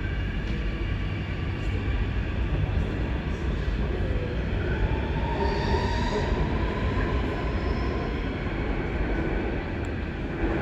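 Alstom Metropolis C830C metro train departing: a steady rumble of wheels on rail and running gear as it pulls out, with a faint tone rising over the rumble about halfway through.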